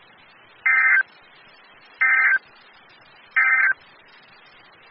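Emergency Alert System end-of-message code: three identical short bursts of warbling digital data tones, evenly spaced a little over a second apart, over a faint hiss. They mark the end of the alert.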